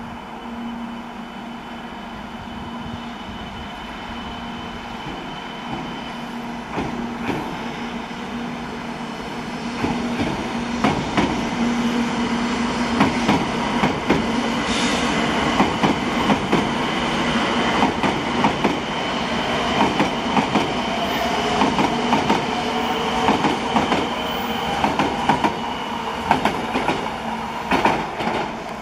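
A JR West 700 series Rail Star shinkansen running slowly alongside the platform, its wheels clicking steadily over the rail with a held motor whine. It grows louder as the train comes close.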